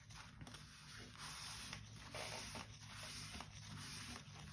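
Faint cloth rag rubbing over thick black cardstock in a series of short wiping strokes, wiping off excess glue along the freshly glued edge.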